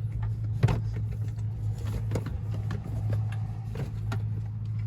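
RCA audio cable being pulled and fed behind the dash trim: scattered light knocks and rustles, the sharpest about a second in, over a steady low hum.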